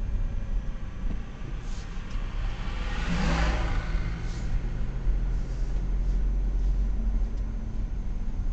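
Car driving slowly, heard from inside the cabin: a steady low engine and road rumble, with a brief louder rush of noise about three seconds in.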